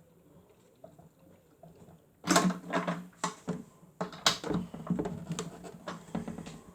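Miele W1 toy washing machine running its wash cycle: after a quiet pause, the drum motor starts about two seconds in with a low hum and a run of irregular clicks and rattles as the drum turns.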